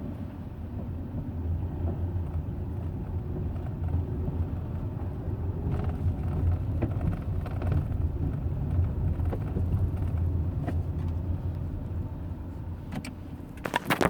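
Hyundai Eon running at low rpm: a steady, rough low drone, the grinding noise the owner reports at low engine speed. A few sharp clicks come near the end.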